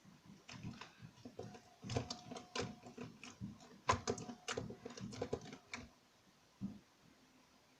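Glittery slime being kneaded and pressed by hand as gouache paint is worked into it: a run of irregular sticky clicks and pops that stops about six seconds in, with one more pop shortly after.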